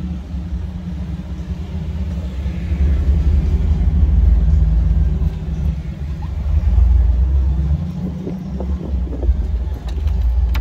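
Jeep engine running as the Jeep drives slowly through soft sand, heard from inside the cab as a steady low rumble. The rumble swells twice, about four seconds in and again around seven seconds in.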